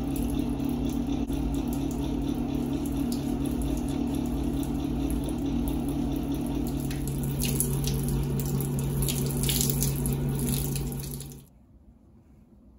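Tap water running into a sink, a steady rush with a low hum beneath it, which cuts off suddenly about eleven seconds in.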